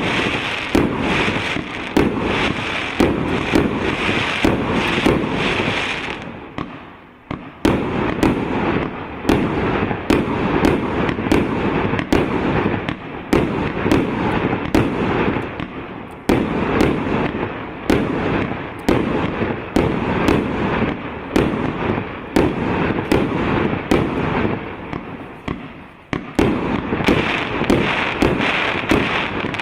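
A 1.25-inch, 100-shot consumer fireworks cake firing a rapid barrage: sharp shots about two or three a second over continuous crackling, easing off briefly twice.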